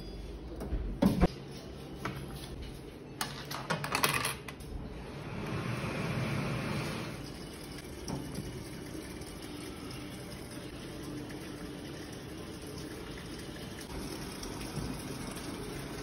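Sneakers being fitted onto the wire shoe hangers of a coin-operated sneaker dryer: a couple of knocks, then a rattling clatter. This gives way to a steady whooshing background noise.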